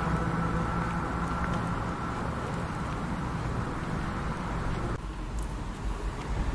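Street background noise with a steady low hum that fades away over the first few seconds; the sound changes abruptly about five seconds in.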